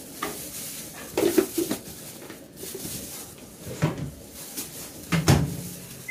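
A plastic container with its lid clattering as it is handled and set down inside a Samsung Smart Oven microwave. About five seconds in, the microwave door shuts with a solid knock.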